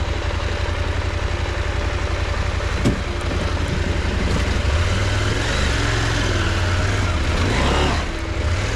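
KTM 890 Adventure R parallel-twin engine running at low speed as the motorcycle picks its way over broken concrete and rubble, with one sharp knock about three seconds in.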